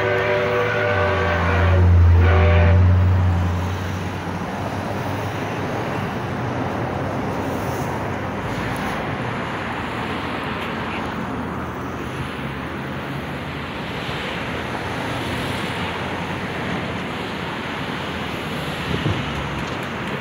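A horn sounds near the start, a long blast and then a short one, over a low rumble. Then a steady noise of traffic and wind.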